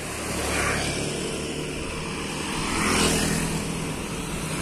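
Motor scooters passing on the street: one goes by close about a second in, and a second vehicle swells up and fades around three seconds, its engine pitch rising as it passes, over a steady low engine rumble.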